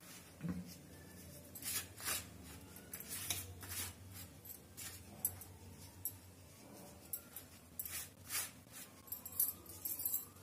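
Fingers mixing a dry spice stuffing in a stainless steel plate: irregular short scratchy scrapes of powder and fingertips against the metal, over a faint low hum.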